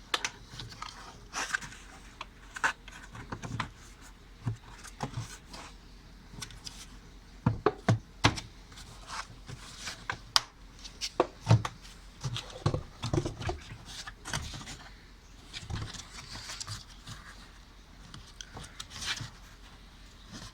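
The border ring of an automatic washing machine's tub being worked into place by hand and its locks pushed home: scattered clicks, knocks and rubbing, with a cluster of heavier thumps in the middle.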